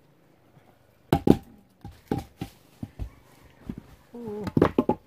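Split firewood logs knocking against each other as they are handled and tossed onto a pile: a run of separate wooden clunks, the loudest two just after a second in. A voice comes in near the end.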